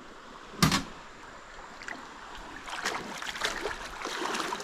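Canoe on a creek: one sharp knock on the hull a little over half a second in, then a rustle of water and movement with scattered small clicks, growing louder toward the end.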